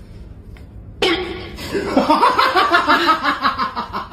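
A person laughing hard, starting suddenly about a second in, in quick repeated bursts.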